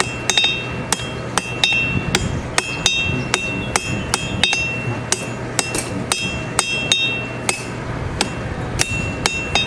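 Blacksmith's hammer striking an anvil over and over, about two to three blows a second, each blow leaving a high metallic ring.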